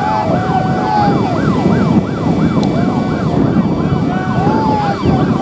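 Emergency vehicle siren in a fast yelp, rising and falling about three times a second, with a second, lower siren tone sliding in and out over a dense low rumble.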